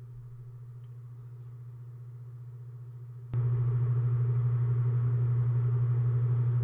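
A steady low hum that jumps abruptly much louder about three seconds in and then holds level.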